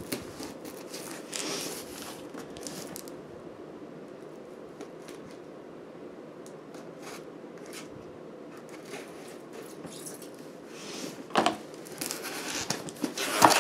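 Small cardboard box being handled and its tape cut open with a small blade: scattered short scratches and scrapes, with louder rustling and scraping of the cardboard near the end, over a steady low hiss.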